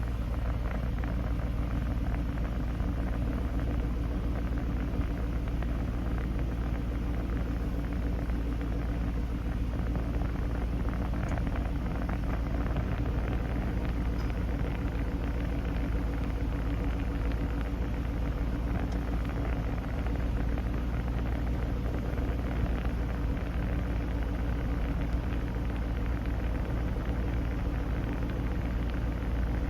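2005 Ford GT's supercharged 5.4-litre V8 idling steadily, with the air-conditioning blower running on max AC.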